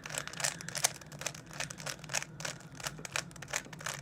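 Plastic 3x3 speed cube being twisted by hand during a solve, its layers clicking as they turn, about three or four quick clicks a second at an uneven pace.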